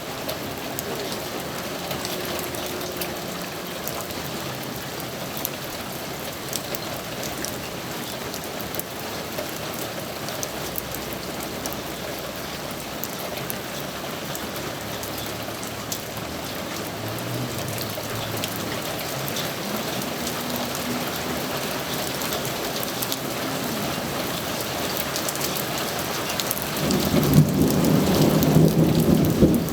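Steady rain falling, with thunder rumbling low in the background. A louder roll of thunder builds near the end.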